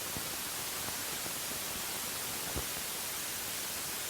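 Steady hiss and static from an old recording's soundtrack, with a few faint clicks, the clearest a little past halfway.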